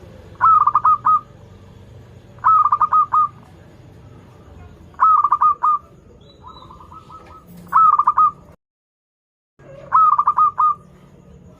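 Zebra dove (perkutut) cooing its song: five short phrases of quick repeated coos, one about every two to two and a half seconds, with a softer phrase between the third and fourth. The sound cuts out to silence for about a second before the last phrase.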